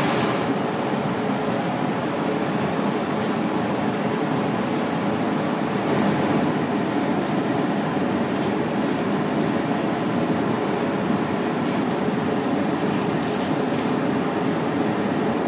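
Steady, even background hum of room noise, the kind a ventilation fan or air conditioner makes, with no speech. A few faint light ticks come near the end.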